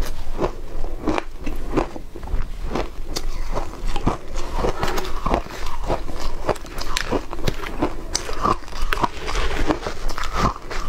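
Close-miked crunching and chewing of matcha-topped shaved ice, crisp crunches coming about twice a second, mixed with a spoon scooping through the ice in the plastic tub.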